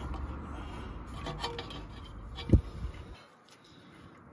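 Small metallic clicks and taps from hands fitting a bolt into a car's rear brake caliper, with one sharp knock about two and a half seconds in, over a low rumble that stops shortly after.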